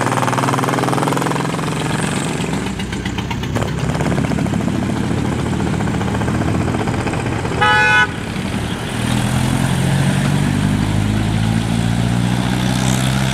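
Heavy decorated trucks (dekotora) driving past one after another, their diesel engines running steadily. A single short horn blast of about half a second comes a little past halfway through. The engine sound grows louder near the end as another truck draws near.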